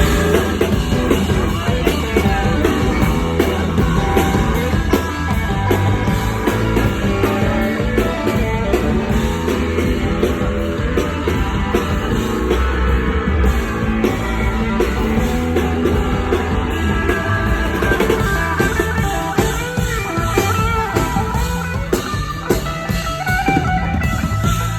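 Live band playing a pop-rock song, guitars over a drum kit.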